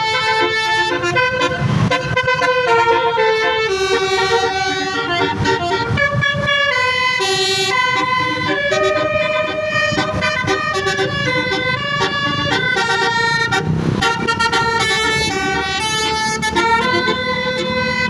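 A 12-note basuri telolet musical air horn on a QQ Trans bus playing a tune, its held horn notes switching pitch every fraction of a second, over a low rumble.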